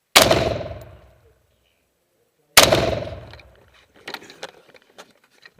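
Two rifle shots from an M1 rifle about two and a half seconds apart, each followed by about a second of echo. A few light clicks and knocks follow near the end.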